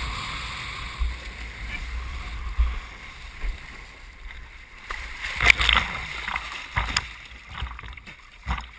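Lake water splashing and sloshing around a windsurfer, board and sail during a waterstart, with wind rumbling on the microphone. Several sharp splashes come in the second half.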